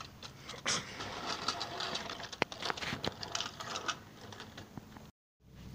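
Plastic Tomy toy trains on plastic track, quietly clicking and clattering with a faint whir. The sound cuts out briefly near the end.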